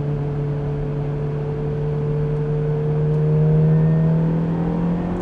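Ferrari F430's V8 engine pulling in third gear, its note rising slowly and steadily.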